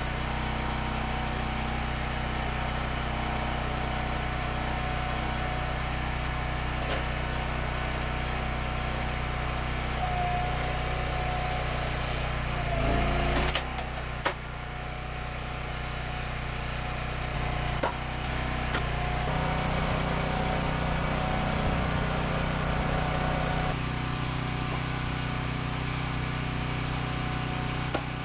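Small gas engine of a hydraulic log splitter running steadily. Around the middle its pitch drops under load as the ram pushes through hickory, with a few sharp cracks and knocks. The engine's note shifts again a few seconds later.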